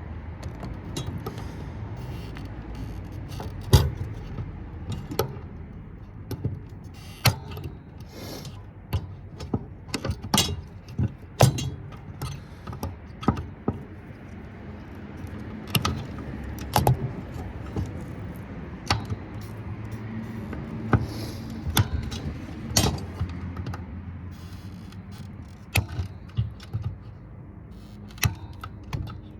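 Irregular sharp metallic clicks and clinks, a few seconds apart and sometimes in quick pairs: wire cutters snipping wire and metal parts being handled as a circuit board is stripped for scrap, over a steady low hum.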